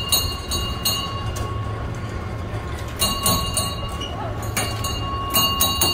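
Kiddie boat ride running: a steady low mechanical rumble, with three bursts of rapid metallic clicking and clanking, one at the start, one about three seconds in and one near the end.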